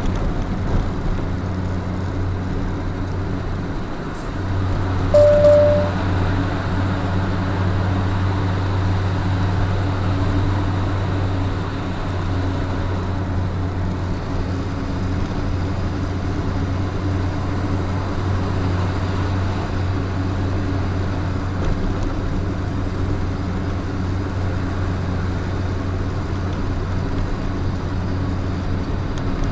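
Steady engine drone and road noise inside a truck's cab while driving on a freeway; the drone grows louder a little after four seconds in. A short beep sounds about five seconds in.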